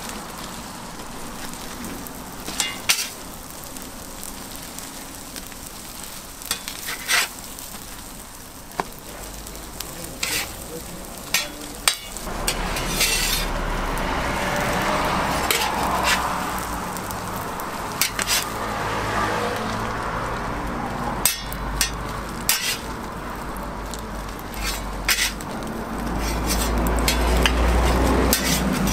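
Toast frying in oil on a flat-top steel griddle, a steady sizzle that grows louder near the end. Sharp clicks and taps of a metal spatula against the griddle come through it.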